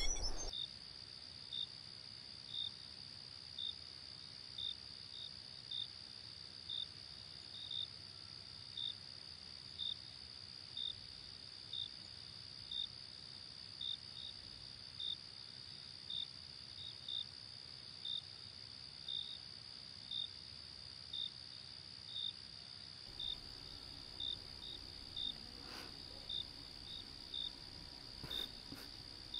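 Crickets trilling, a faint steady high-pitched drone with a short chirp repeating about once a second.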